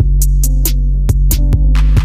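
Background electronic music with a heavy, steady bass and a programmed drum beat.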